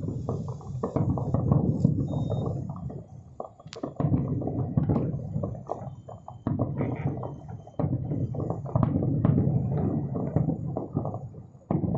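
Distant aerial firework shells bursting in quick succession: a dense run of dull booms and crackles, with a few brief lulls between volleys.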